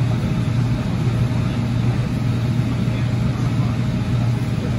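Interior running noise of a 2006 AnsaldoBreda P2550 light rail car in motion: a steady low drone with an even rumble over it.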